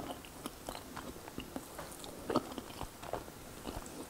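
Close-miked mouth sounds of someone chewing soft gnocchi: small wet clicks and smacks, with a fork clicking against the plate as the next piece is speared.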